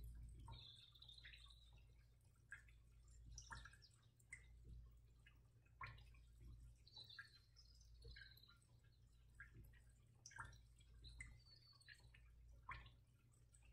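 Near silence: faint room tone with a low hum and scattered soft clicks and short high chirps.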